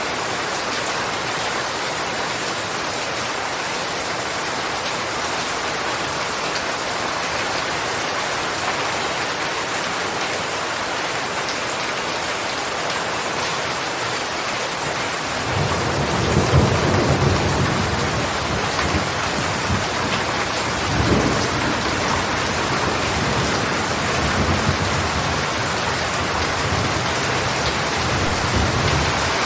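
Steady heavy rain. About halfway through, a low rumble of thunder comes in, swells twice a few seconds apart and rolls on to the end.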